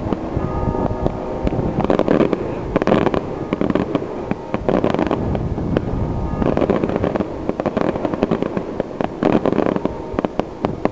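Aerial fireworks shells bursting in a dense, rapid string of bangs and crackles, swelling louder several times.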